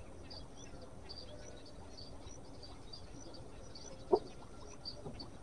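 Small birds chirping in many short high notes over a low steady background, with a single sharp knock about four seconds in.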